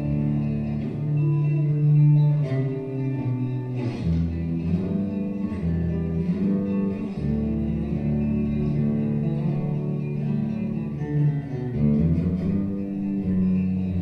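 Instrumental background music led by plucked guitar over a low bass line, with the notes changing every second or so.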